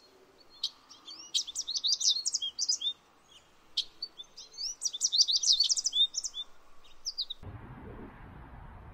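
A songbird singing two phrases of rapid, high chirps and trills. The song cuts off abruptly about seven seconds in, giving way to a steady outdoor background hiss.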